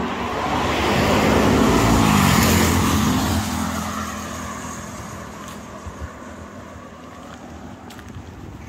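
A motor vehicle driving past close by on the road, its engine sound swelling to a peak about two seconds in, dropping in pitch as it goes by, then fading away.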